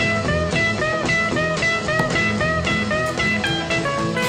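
Music: guitar playing over drums with a steady beat.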